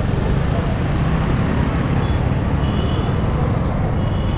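Yamaha R15 M motorcycle being ridden in city traffic: a steady low rumble of engine, road and wind noise on the rider's microphone.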